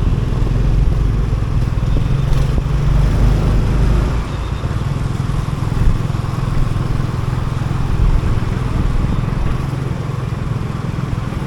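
Motorcycle engine running as the bike rides through city traffic, with road noise; the engine eases off about four seconds in.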